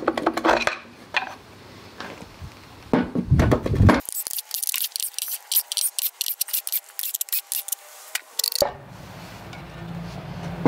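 Hand tools and loose metal engine parts clinking and clattering in scattered sharp knocks, with a middle stretch of rapid, thin clicking.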